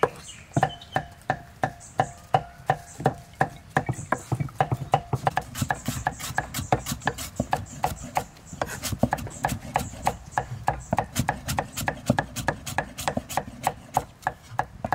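A cleaver chopping lemongrass on a thick wooden chopping board: a steady run of sharp knocks, about three a second at first, then quicker, four or five a second, from about four seconds in.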